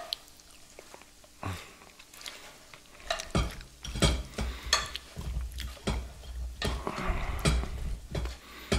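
Frying pan knocking and scraping against a ceramic plate as fried potato noodles and corny dogs are tipped out of it onto the plate. It is quiet at first, with a dense run of clatters and scrapes from about three seconds in.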